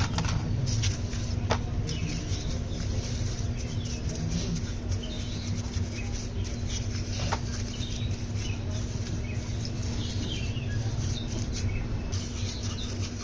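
Yamaha motorcycle engine idling steadily after its carburettor rebuild, a low even running sound with a constant hum, while small birds chirp faintly.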